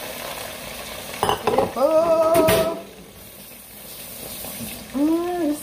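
Food sizzling in a pot on the stove, with clattering of a pot lid and utensils about a second in and again mid-way. A woman's voice hums a held, wordless note in the middle and again near the end.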